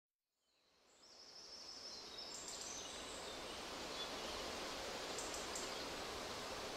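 Ambient outdoor soundscape fading in over about two seconds: a steady hiss, with faint high chirps in the first few seconds.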